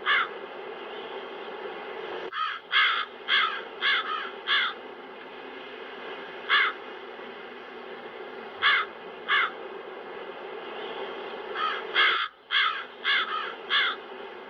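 Crows cawing: quick runs of five or six caws, with single and paired caws between, over a steady wind sound.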